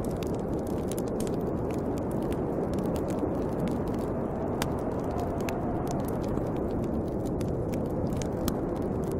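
Steady rushing wind of a snowstorm, with a wood fire crackling over it in frequent sharp pops and snaps; a faint wavering howl rises in the wind midway.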